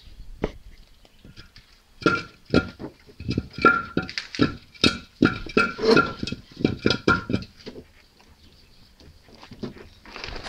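Steel gas cylinder rocked and shaken by hand on concrete: a run of metallic clanks, about two a second, each ringing briefly, starting about two seconds in and stopping after some five seconds.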